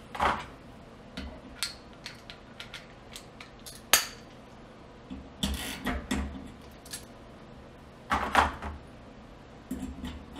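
Small metal clicks and clinks of a nut driver working a burner's gas orifice loose on a gas range cooktop, with one sharper click about four seconds in and a few louder rustles and scrapes of handling.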